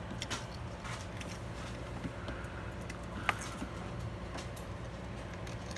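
Small clicks and taps of a CPU heatsink's retention clip being hooked onto the motherboard's mounting bracket, with one sharper click about three seconds in, over a steady low background hum.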